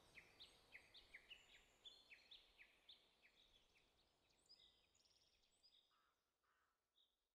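Near silence with faint, quick bird chirps, short falling notes about three or four a second, fading away until they stop just before the end.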